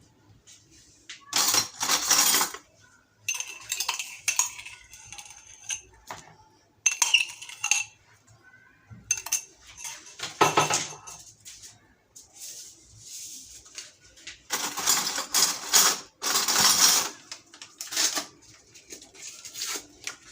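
Kitchen utensils and dishes clattering and scraping against a mixing bowl in separate bursts while cake batter ingredients are handled.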